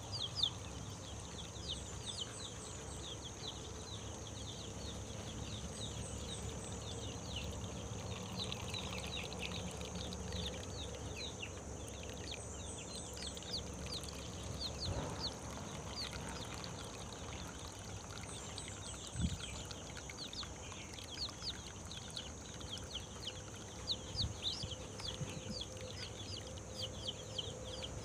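Chicks peeping: rapid, repeated high cheeps, each falling in pitch, going on throughout, over a steady high-pitched whine.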